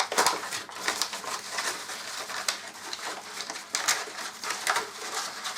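Paper packaging rustling and crinkling in short irregular bursts as an item is unwrapped by hand.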